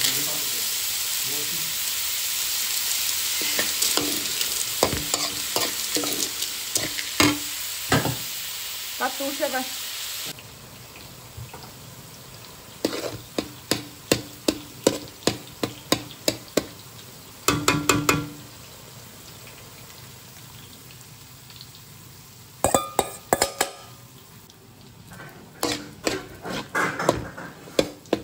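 Shrimp, carrot, sausage and peas stir-frying in a metal wok: a loud sizzle for the first ten seconds that drops away abruptly. After it, a metal spoon scrapes and clanks against the wok in quick runs of strokes.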